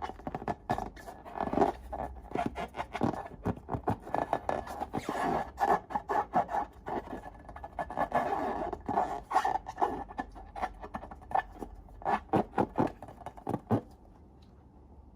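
Slime being worked by hand, giving dense, irregular sticky crackles and small pops that stop about a second before the end.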